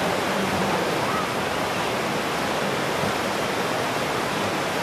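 Whitewater rapids of a canoe slalom course rushing steadily, a dense even roar of churning water.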